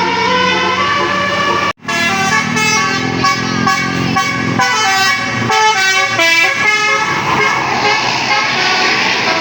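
Bus telolet basuri horn playing a multi-note melody of stepped, held tones, briefly cut off near the start, then giving way to a rushing vehicle noise about seven seconds in.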